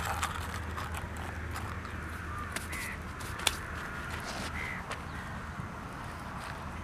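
Crows cawing a few times in the background over a steady low hum, with scattered sharp clicks, one louder about three and a half seconds in.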